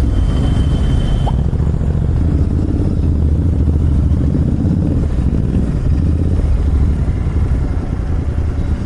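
Royal Enfield Continental GT 650's parallel-twin engine running steadily through an SS Moto slip-on exhaust, its pitch wavering slightly, with a thin high whine over it in the first second or so.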